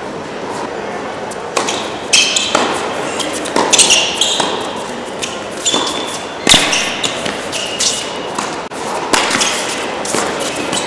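A tennis point on an indoor hard court: ball bounces and racket strikes ring out in a large echoing hall, mixed with short shoe squeaks on the court surface. The hardest hit comes about six and a half seconds in.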